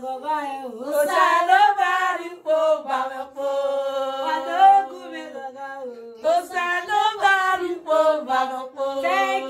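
Women's voices singing together without instruments, a melody with gliding pitch and some long held notes.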